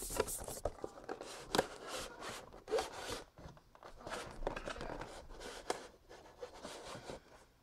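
Close handling noise: faint rustling with a string of short clicks and scrapes, the sharpest about one and a half seconds in, as the camera is set down and the packaging is handled.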